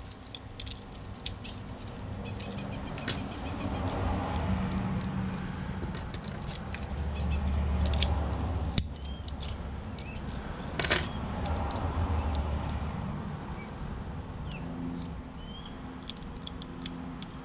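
Small metal clicks and rattles of a replacement glove box lock cylinder and its key being worked by hand, tested locking and unlocking. A few sharper clicks come a little past the middle. A low rumble swells and fades in the background through the middle.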